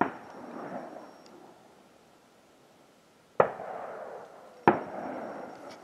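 Three gunshots from the boar drive: one right at the start, then two about a second and a half apart near the end. Each is a sharp crack followed by about a second of rolling echo.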